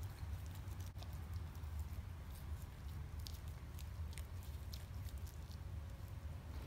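German Shepherd licking and mouthing a chunk of raw steak: faint, scattered wet smacks and clicks over a low steady hum.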